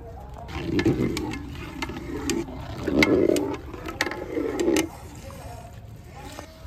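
Long-handled metal skimmer stirring rice in a large metal pot of liquid: repeated clinks and scrapes of metal on the pot's side and rim, mixed with stirring and sloshing in four short bouts.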